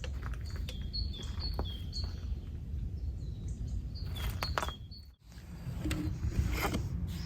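A bird calling in short falling chirps, repeated in quick runs, over scattered crackles from a wood fire burning in a camping stove and a steady low rumble. The sound drops out briefly about five seconds in.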